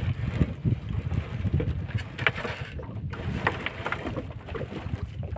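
Wet gill net being hauled by hand into a small boat, the mesh and floats patting and dripping in irregular little ticks, over a steady low rumble of wind on the microphone.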